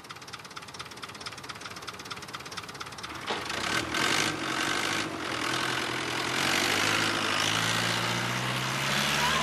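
Diesel tractor engine idling with a fast, even knock, growing louder about three seconds in as the tractor revs and pulls away.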